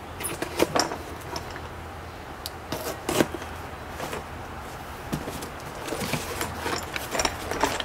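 A knife slitting the packing tape on a small cardboard box, with irregular scraping, short tearing sounds and the box being handled, the loudest about three seconds in.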